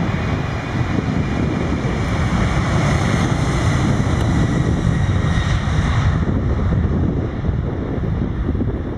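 Boeing 747-400's four turbofan engines at takeoff thrust on the takeoff roll: a deep, steady rumble with a hissing whine that swells from about two seconds in and fades after about six seconds. Gusty wind buffets the microphone throughout.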